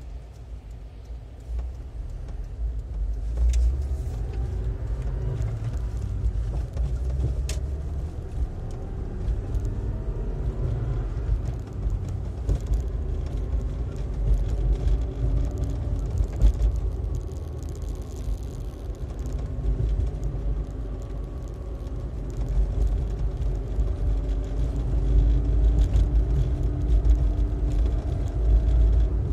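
A car driving through town, heard from inside the cabin: a steady low engine and road rumble, with the engine note climbing as the car picks up speed, once in the first half and again near the end.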